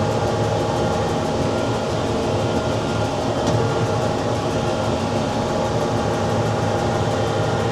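Case IH Farmall 110C tractor running steadily under load while pulling a New Holland BR7060 round baler at work, a constant engine drone mixed with the baler's rumble and clatter.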